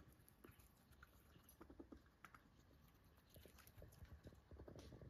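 Faint, irregular small clicks and crunches of pet rats nibbling white flax seeds from a dish.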